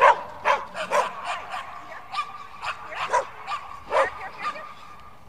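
A dog barking in a quick string of short, sharp yips, about two a second, the loudest right at the start.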